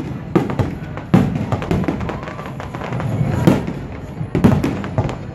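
Aerial fireworks shells bursting overhead: a run of sharp bangs, about one or two a second, over music playing underneath.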